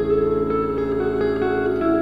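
Instrumental music: layered held notes over a steady low drone, with a new note coming in about every half second.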